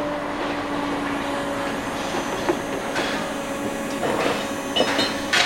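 Steel ride parts clanking and knocking during funfair ride assembly, over a steady machine hum; several knocks come in quick succession near the end.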